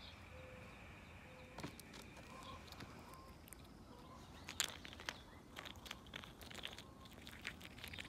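Small irregular clicks and taps of hazelnuts and peanuts shifting on a hand as a chipmunk grabs at them, becoming frequent in the second half. A faint thin steady high tone is present for the first three seconds.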